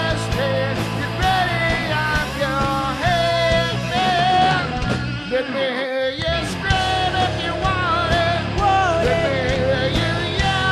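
Live heavy rock band playing, a lead singer's voice over the full band. The low end cuts out for a moment about halfway through, then the band comes back in.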